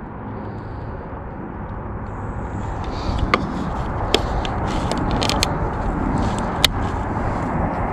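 Sharp plastic clicks and light scraping as a trail camera is handled and strapped to a tree trunk, several clicks in the second half, over a steady low rumble that slowly grows louder.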